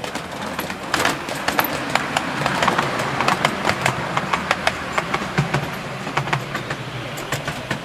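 A 7.25-inch gauge miniature train running past close by, its wheels clicking over the rail joints in a quick, uneven run of clacks over a low running hum; the clacking grows about a second in and fades as the last carriage goes by.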